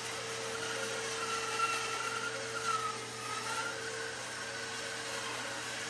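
Bandsaw running and cutting through a thick laminated wooden boat stem: a steady machine hum under a cutting whine that wavers up and down in pitch as the piece is fed along the curve.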